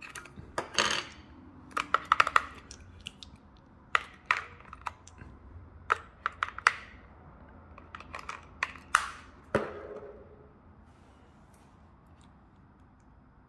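AA batteries clicking and rattling as they are pushed into a TI-89 graphing calculator's plastic battery compartment against its spring contacts, with the plastic case knocked about in the hands. A string of sharp clicks that stops about ten seconds in.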